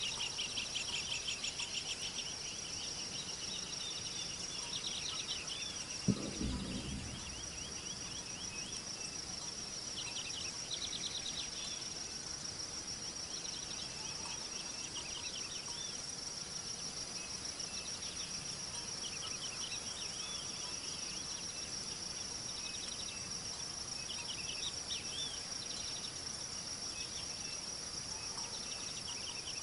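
Steady high-pitched insect chorus, with short bursts of rapid trilling calls every second or two. There is a single low thump about six seconds in.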